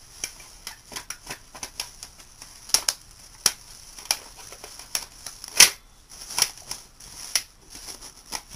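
Plastic wrap crinkling and crackling as it is stretched and smoothed over the rim of a large glass bowl, in quick irregular crackles with one loudest crackle a little past halfway.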